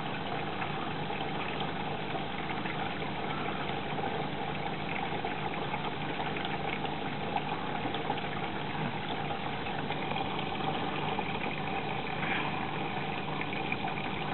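Hoover Electra 540 Dual Spin front-loading washing machine running steadily through its wash, motor and drum turning; its drum bearings are worn. A faint high whine joins about ten seconds in.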